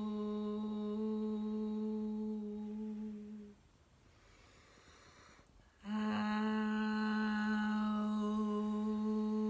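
A woman's voice holding one long, steady hummed vowel tone as meditative toning. The tone breaks off about three and a half seconds in for a soft in-breath, then starts again at the same pitch about two seconds later.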